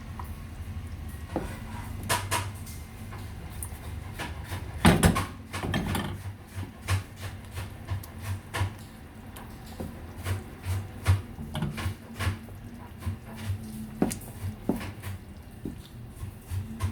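Serving spoon or ladle scraping and knocking against the cooking pot and serving dish as chicken curry is dished out: a run of short clinks and knocks, the loudest cluster about five seconds in.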